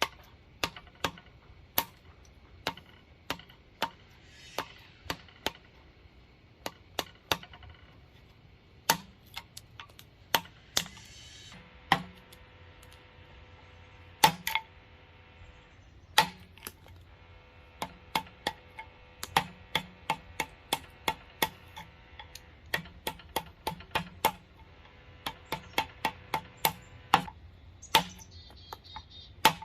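A woodworking chisel being struck to chop out hickory between handsaw relief cuts: sharp knocks at an irregular pace, roughly one or two a second.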